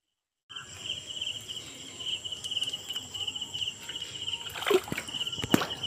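Insects trilling steadily in a fast pulsing chirp, starting about half a second in, with a couple of sharp knocks near the end.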